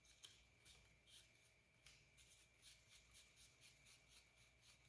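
Faint, quick scratchy ticks of small cheek-riser hardware being turned into place by hand against the Kydex. They come irregularly at first, then about five a second.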